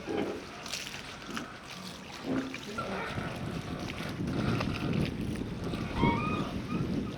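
Harbour ambience: a steady wash of water and wind, with scattered small knocks and a short squeak that rises and falls about six seconds in.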